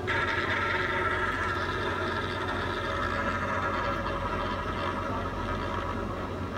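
Fixed-odds betting terminal's roulette spin sound effect: a steady rolling whirr of the ball that starts suddenly as the wheel spins and slowly fades as it slows, over a low steady hum.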